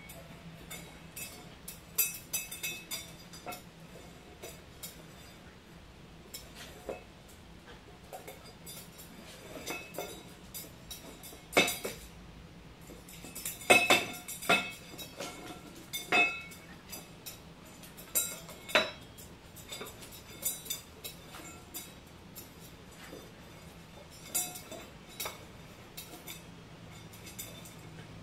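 Stainless steel dog bowl clanking and ringing on a hardwood floor as a small dog plays with it and pushes it around: irregular metallic knocks a second or two apart, the loudest in the middle stretch.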